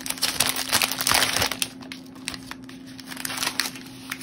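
Clear plastic zip bag crinkling as it is handled and opened. The rustling is densest in the first second and a half, then falls to fainter rustles and small clicks.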